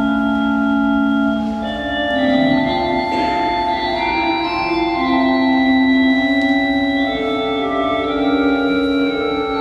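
Mutin Cavaillé-Coll pipe organ playing a Baroque noël in trio texture: several held, overlapping melodic lines that move from note to note, in a reverberant church.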